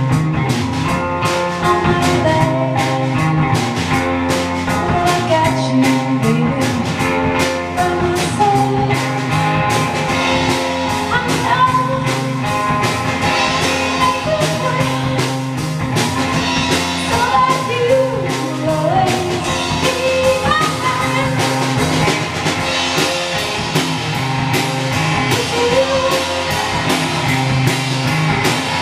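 A live band playing blues-rock: electric guitar and a drum kit, with a woman singing.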